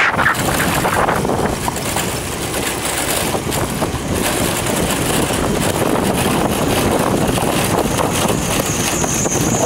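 Motorbike riding along a dirt road: steady wind noise on the microphone mixed with engine and tyre noise.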